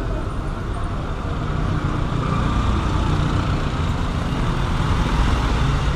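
Street traffic: motor vehicle engines running close by, a steady low rumble that grows a little louder after about two seconds.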